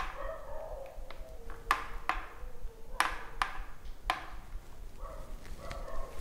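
A handful of sharp clicks and taps as a DSLR camera on a tripod is handled and adjusted, about five of them between one and four seconds in, with faint distant pitched sounds near the start and end.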